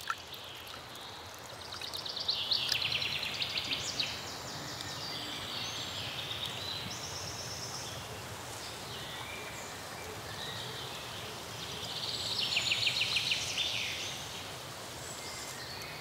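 Outdoor natural ambience: a steady soft rushing noise with rapid high trilling calls, one about two seconds in and another near the end, and shorter high chirps in between.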